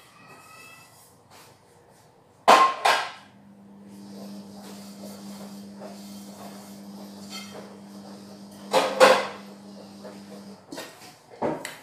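Pots and pans clanking as they are dried with a towel and set down. There are two sharp knocks a few seconds in, another loud one near the end and a few smaller ones after it. A steady low hum runs through the middle.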